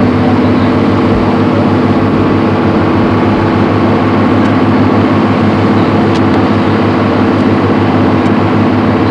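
A harbour tour boat's engine running steadily, a loud, even drone heard from on board.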